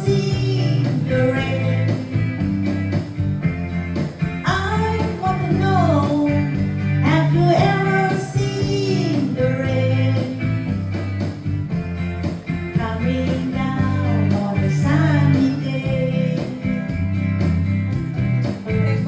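A song with a solo voice singing over guitar accompaniment and a steady chord and bass backing.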